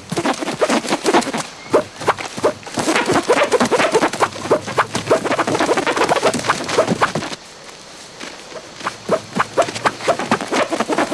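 Running footsteps crunching through dry leaves and brush, with an animal's cries from the chasing badger among them. About seven seconds in it gets quieter and the footsteps turn sparser and evenly spaced, running on a paved road.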